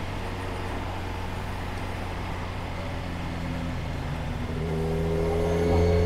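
Motorcycle engine running steadily at low speed with road noise, then accelerating from about four and a half seconds in, its pitch rising slowly and getting louder.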